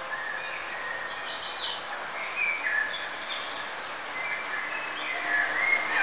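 Several birds chirping and singing in short high notes and trills, the loudest about a second and a half in, over a steady background hiss.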